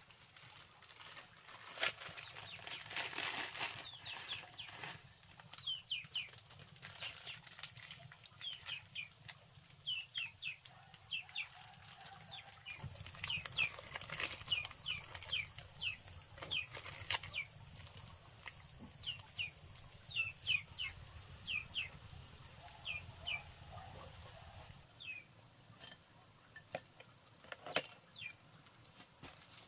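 Birds chirping in runs of short, quickly falling notes, with scattered sharp knocks and rustles.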